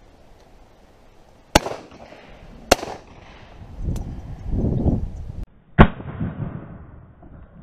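Three shotgun shots from a side-by-side double-barrelled shotgun, each sharp with a short echoing tail. The first two come about a second apart, both barrels fired in turn, and the third follows about three seconds later. A low rumble sits between the second and third shots.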